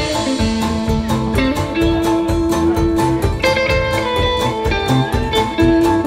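Band playing an instrumental passage with guitar to the fore over a steady beat.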